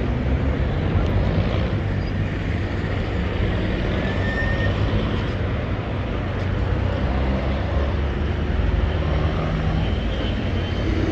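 City street traffic: vehicle engines running with a steady low rumble.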